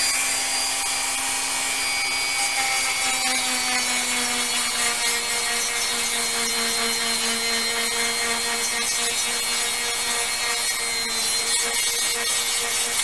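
Handheld rotary tool running steadily, its bit grinding down a small plastic model part to thin it. A constant motor hum sits under the grinding hiss, its pitch easing down slightly over the first few seconds.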